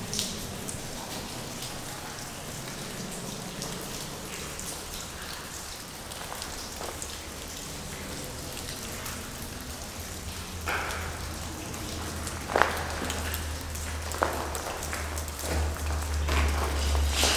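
Water dripping and pattering steadily from melting icicles onto a wet tunnel floor: many small drips throughout. A few louder knocks come in the second half.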